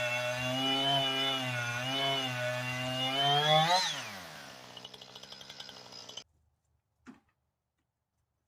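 Small engine running steadily, its pitch wavering. About four seconds in it rises briefly, then winds down and fades. The sound cuts off abruptly a couple of seconds later, followed by near silence and a faint knock.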